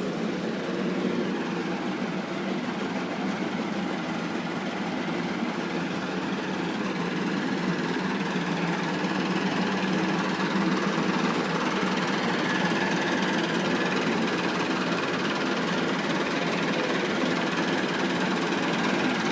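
Massey Ferguson 375 tractor's diesel engine running steadily, growing a little louder about halfway through.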